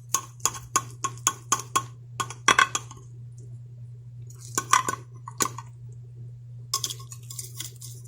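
A utensil tapping and clinking on the crisp baked top of a peach cobbler in its dish: about four or five sharp taps a second at first, then short clusters of clinks and scrapes. A steady low hum runs underneath.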